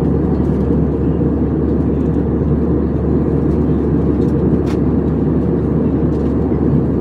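Airbus A320-family airliner cabin in flight: a steady, loud, deep drone of jet engines and airflow, heard from a window seat over the wing. A faint tick sounds about halfway through.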